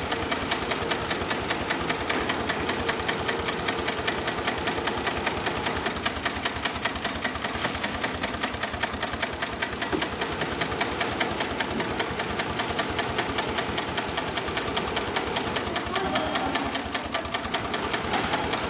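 Sailmaster 366-76-12 heavy-duty industrial zigzag sewing machine stitching without pause, its needle bar and pullers beating out a fast, even rhythm.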